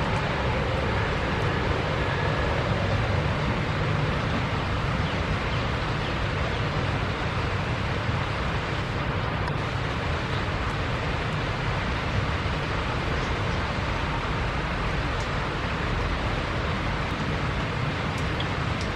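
Steady jet engine noise from airliners moving on a wet airport surface: a low rumble under a broad, even hiss.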